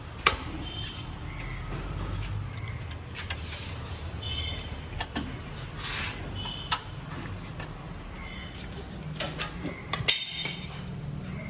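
Scattered metallic clicks and clinks of tools and parts being handled, with a sharp knock just after the start and a quick run of clinks near the end, over a steady low hum.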